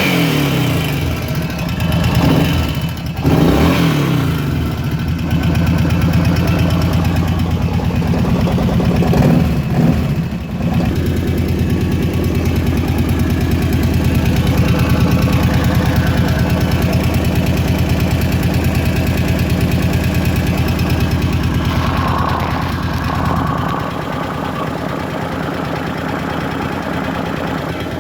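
Kawasaki KVF 750 Brute Force ATV's V-twin engine running, revved a few times in the first ten seconds, then idling steadily. It has a rattle that the owner says comes from the top end of the engine.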